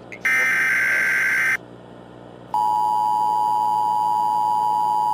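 Emergency Alert System tones: the last burst of the SAME digital data header, a buzzy warbling tone lasting about a second and a half. After about a second's pause the steady two-tone EAS attention signal starts and holds.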